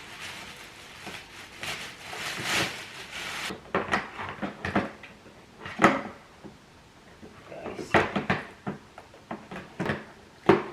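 Hard plastic parts of a carpet cleaner clicking and knocking as its handle is handled and fitted, with a stretch of rustling and scraping about two seconds in, then single sharp clicks every second or two.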